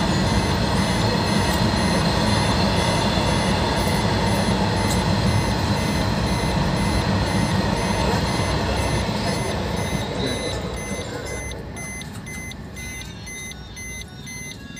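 Freight train's wagons running past a level crossing in a steady loud rumble that fades away from about ten seconds in as the end of the train goes by. A regular electronic beeping sounds over it throughout.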